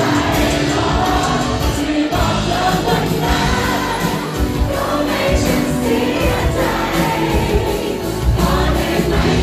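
Live band playing a pop song, with singing over the music.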